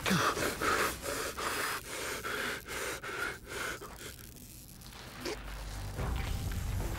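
A person gasping and panting hard, in quick ragged breaths that die away after about four seconds.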